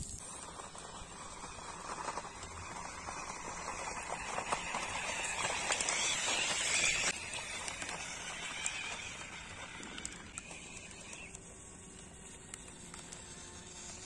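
Small electric RC toy tractor driving over dirt and dry weeds: a faint motor whine with crackling of plants under the tyres, growing louder and then dropping sharply about seven seconds in.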